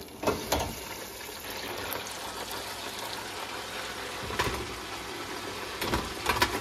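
Batter-coated walleye fillets bubbling and sizzling in the hot oil of a Presto ProFry deep fryer, just dropped in: a steady, dense hiss that swells about a third of a second in. A few sharp knocks from the fryer's baskets and lid cut through the sizzle early on and again near the end.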